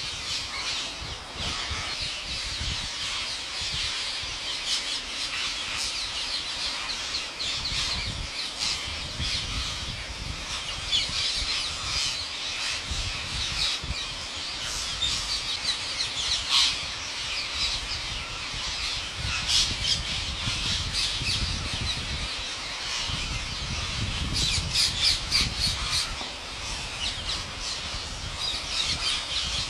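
A huge flock of rose-ringed parakeets screeching together on the ground as they feed: a dense, continuous chorus of shrill squawks with no break.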